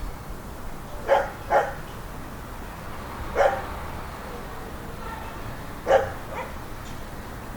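A dog barking in short single barks, a quick pair about a second in, then one every two or three seconds, over a steady low background rumble of suburban ambience.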